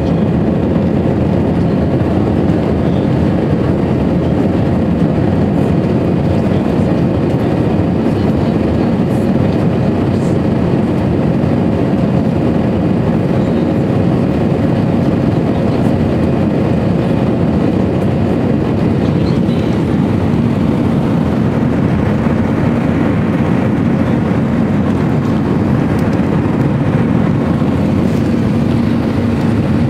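Steady cabin noise of an Airbus A340-300 climbing after takeoff: the drone of its four CFM56 engines and the rush of air past the fuselage, with a faint low hum running through it.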